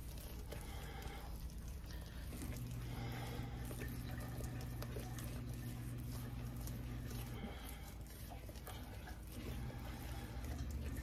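A spoon stirring thick cake batter in a bowl by hand: soft, continuous scraping and squishing. A steady low hum sits underneath and grows stronger for a few seconds in the middle.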